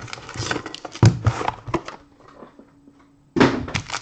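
Cardboard trading-card box being slid out of its sleeve and handled, with scraping and rustling and a knock against the table about a second in. After a quiet moment, a sudden burst of rustling near the end.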